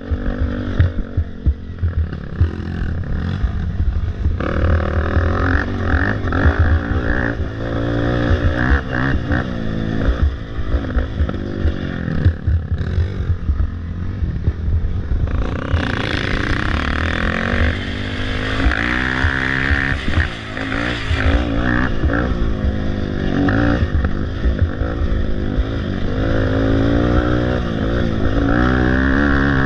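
Racing ATV engine revving up and down over and over as the throttle is worked along a rough dirt trail, heard close from the quad itself.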